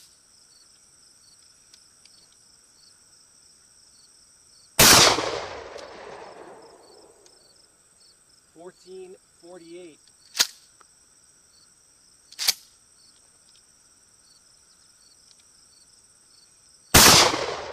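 Two shots from a 12-gauge Remington 870 pump shotgun firing 1 oz rifled slugs, one a little under five seconds in and one near the end. Each is a sharp blast with a long fading echo. Two short sharp clicks come between the shots.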